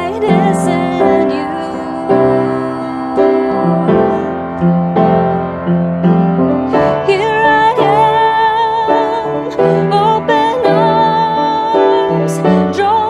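A woman singing a slow worship song while accompanying herself on an upright piano, her held notes sung with vibrato.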